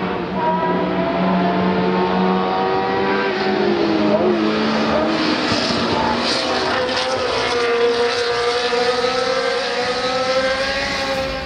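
Ferrari 126 C2 Formula 1 cars' 1.5-litre turbocharged V6 engines running at race speed, the engine note falling and rising in pitch as they brake and accelerate.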